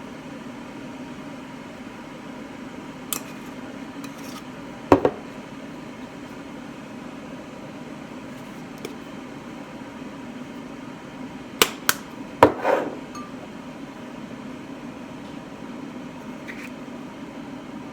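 Kitchen dishes and pans being handled: a few scattered knocks and clinks, with a quick cluster of three or four about two-thirds of the way through, over a steady low appliance hum.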